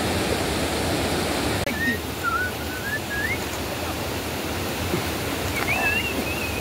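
Shallow river rapids rushing over rocks in a dense, steady wash. About one and a half seconds in this cuts to a softer wash with thin, sliding whistled calls that rise and fall, several in a row.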